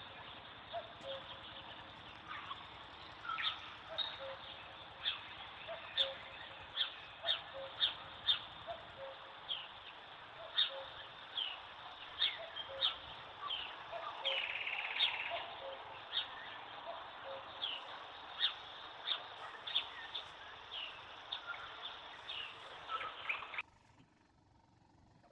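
Birds chirping: many short, sharp, falling chirps, one or two a second, with a brief buzzy call in the middle, over a steady background hiss. It all cuts off suddenly near the end.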